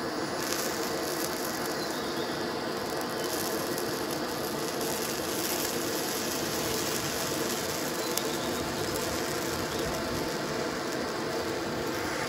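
Handheld butane torch burning steadily with a rough, even hiss as its flame plays into a small steel can.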